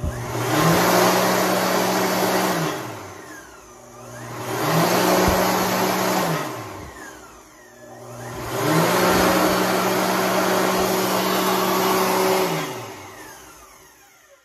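Mediclinics Speedflow M06 hand dryer switching on and blowing, then shutting off, three times: each run starts with the motor rising quickly to a steady hum under a strong rush of air, and ends with the motor pitch falling away as it spins down. The last run is the longest, about four seconds.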